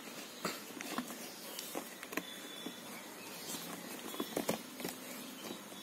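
A cardboard smartphone box handled in the hands, giving scattered light taps and rubbing clicks as it is turned over, with a small cluster of taps about four seconds in.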